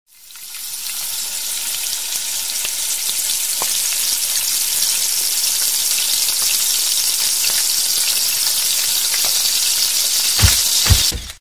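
Hot ghee sizzling in a miniature black kadai: a steady, bright frying hiss that fades in at the start and cuts off just before the end. A few low thumps come near the end.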